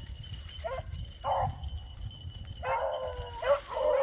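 Beagles baying on a rabbit's trail: short cries about a second in, then longer drawn-out bays near the end. Wind rumbles on the microphone underneath.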